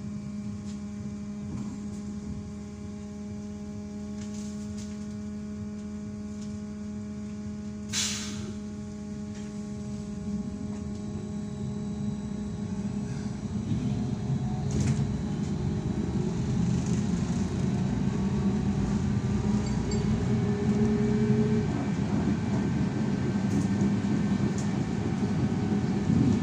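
Inside a BKM 321 trolleybus: a steady electrical hum from its equipment while it stands, with a short hiss about 8 seconds in. From about halfway through, it moves off and the motor and road rumble grows louder.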